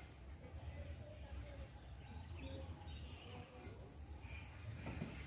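Quiet outdoor background: a steady high-pitched insect trill over a low rumble, with a faint click near the end.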